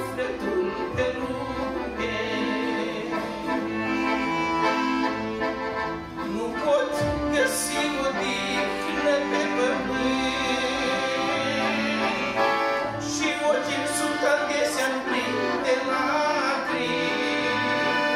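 Two piano accordions playing a hymn tune together, with chords held under the melody.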